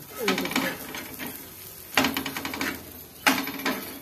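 Flat metal spatula scraping and stirring fried bitter gourd slices across a black iron tava, three strokes about one to two seconds apart.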